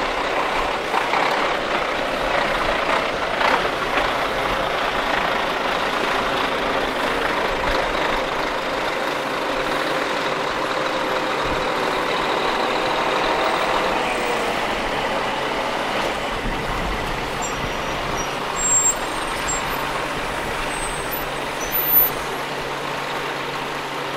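Heavy diesel lorry engine running as a classic truck drives slowly in, its note dropping about halfway through. Two short, sharp louder sounds come near the end.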